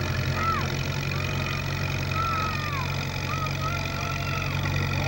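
Antique farm tractor engine running steadily under load as it pulls a weight-transfer sled down a pulling track. Short high squeals that rise and fall come and go over the drone.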